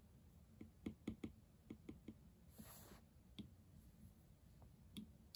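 Faint taps of a stylus tip on an iPad's glass screen: a quick run of light clicks in the first couple of seconds, then a few scattered ones.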